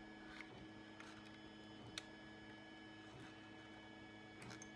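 Near silence: a steady electrical mains hum, with a few faint clicks of small plastic model-locomotive parts being handled and pressed into place.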